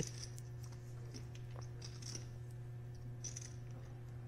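Faint background room tone: a steady low hum with a few soft ticks and light hissy rustles scattered through it.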